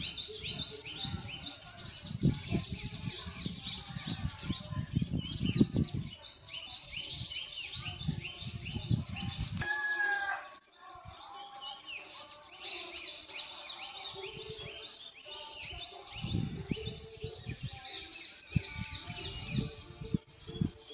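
Many small birds chirping continuously, a dense chatter of short, quick, downward-sliding calls. A low rumble on the microphone covers the first six seconds and comes back from about sixteen to twenty seconds in.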